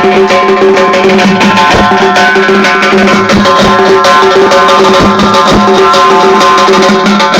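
Loud music: a melody of held tones over drums, with strikes that come irregularly throughout.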